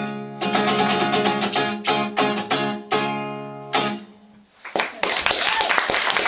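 Acoustic guitar strumming the closing chords of a song, with a few sharp strums and a last chord ringing out and stopping about four seconds in. About five seconds in, audience applause starts.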